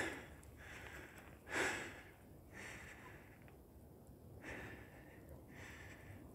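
A hiker breathing hard in a run of regular, hissy breaths while climbing a tall, steep steel ladder-stairway, the loudest breath about one and a half seconds in.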